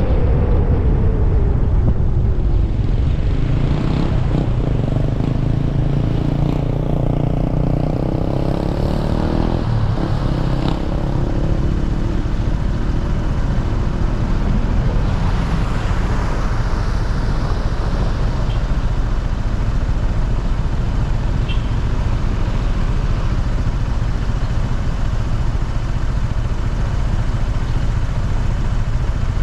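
Car engine and road noise as the car slows for a traffic light, the engine note falling in the first seconds, then a steady low rumble of idling engines and traffic while stopped, with a motorcycle just ahead.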